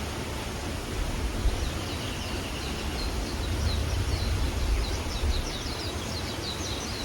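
Stream water rushing steadily, with a songbird singing a rapid, high twittering trill that starts about two seconds in and runs almost to the end.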